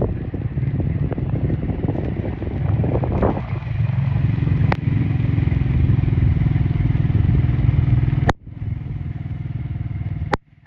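Steady low rumble, with three sharp clicks in the second half; after the last two the sound briefly drops out.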